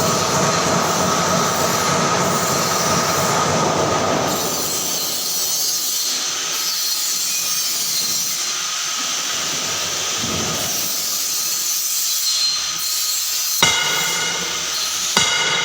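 Green-tea processing machine running with a steady hissing, rumbling noise, changing about three-quarters of the way through, with two short sharp knocks near the end.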